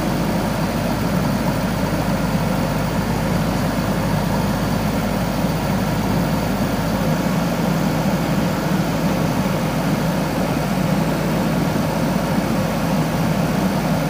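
JCB backhoe loader's diesel engine running steadily at low revs.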